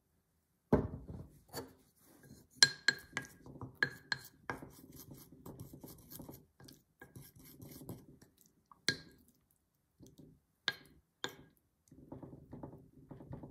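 A wooden spatula stirring sliced chicken breast in a wet marinade in a glass bowl: repeated sharp clinks of the spatula against the glass over a soft wet scraping, with a single knock under a second in.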